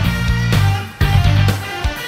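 Rock music with heavy electric guitar, which stops briefly about a second in and then comes back in.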